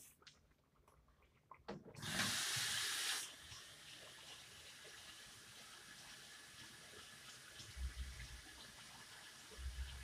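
Water running at a sink as a floury hand is rinsed off: a few clicks, then about a second of splashing water starting some two seconds in. After it, a faint hiss with a few soft low knocks near the end.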